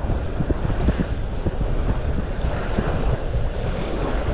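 Wind buffeting the microphone: a loud, gusty low rumble with constant rustling noise over it.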